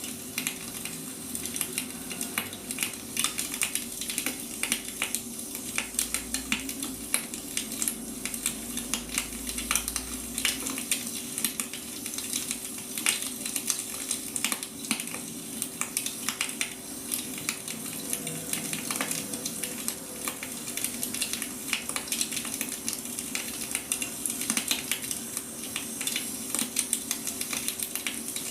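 Wood fire crackling: dense, irregular pops and snaps over a faint hiss, with a steady low hum underneath.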